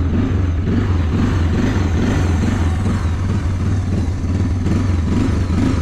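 Honda Big Red 300 quad's single-cylinder four-stroke engine idling steadily, running without choke, "purring like a kitten", with no gear clacking from the kickstart.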